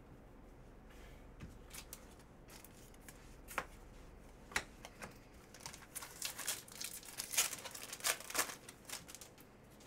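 Trading cards being handled and slid against one another: scattered small clicks and papery rustles, sparse at first and busiest in the second half.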